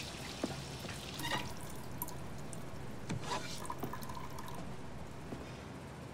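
Kitchen ambience at a stainless-steel sink: water dripping, with scattered light clicks and a few short clinks over a steady low hum.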